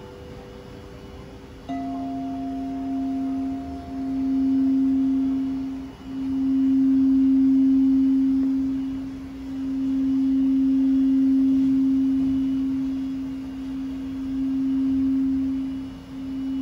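Frosted quartz crystal singing bowl sung with a wooden mallet on the rim of the largest bowl. A low, pure tone starts suddenly about two seconds in, then keeps sounding, swelling and fading in slow waves. A higher ringing tone fades out within the first several seconds, over the faint ring of bowls played earlier.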